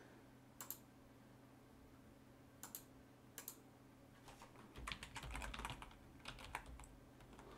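Faint typing on a computer keyboard: a few separate clicks at first, then a quick run of keystrokes about five seconds in.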